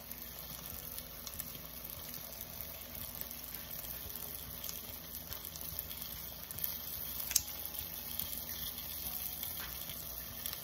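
Sliced red onions frying in butter and olive oil: a steady, soft sizzle with faint crackles, and one small click about seven seconds in.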